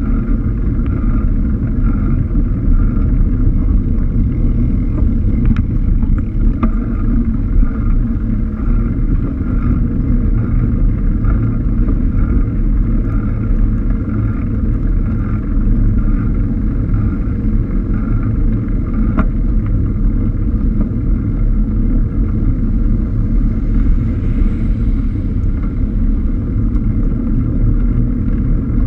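Steady, loud wind and road rumble on the microphone of a camera riding on a moving bicycle, with a few faint clicks.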